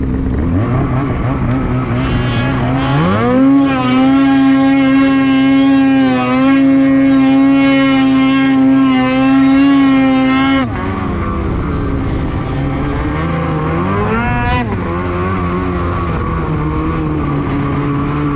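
Polaris Switchback Assault 850 snowmobile's two-stroke twin accelerating away: the engine pitch climbs about three seconds in and holds high and steady under full throttle for about seven seconds, then drops sharply as the throttle is let off. A brief rev follows a few seconds later before it settles to a lower steady run.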